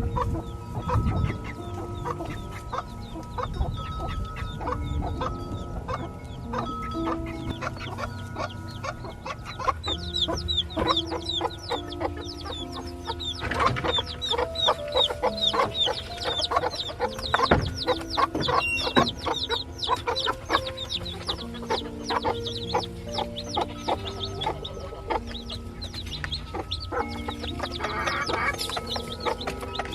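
Chickens clucking, with background music of held notes underneath. The short high calls get busier about a third of the way through.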